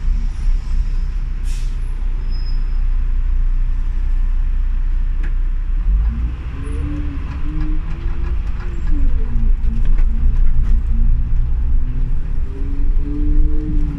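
City bus under way: a steady low engine rumble, with a drivetrain whine that climbs in pitch about halfway through, falls away, then climbs again near the end.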